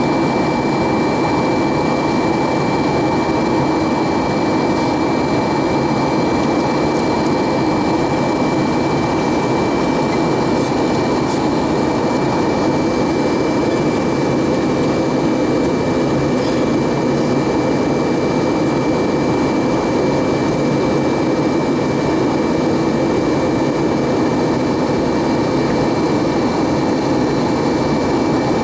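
Steady in-flight cabin noise of an Airbus A320-232: the rush of air over the fuselage and the drone of its IAE V2500 turbofan engines, heard from a window seat. A thin steady high whine runs over the even rumble throughout.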